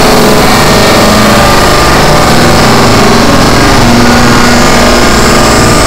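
Experimental noise-drone music: a loud, dense, unbroken wash of noise filling every register, with a few steady held tones running through it and no change in level.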